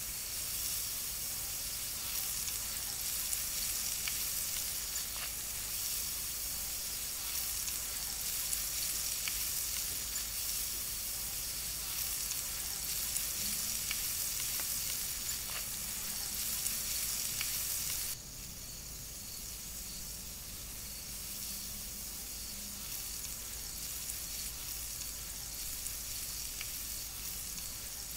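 Butter and salmon fillet sizzling and crackling as they sear on a hot Himalayan salt block, a steady hiss with scattered small pops. About two-thirds of the way through, the sizzle drops suddenly to a quieter hiss.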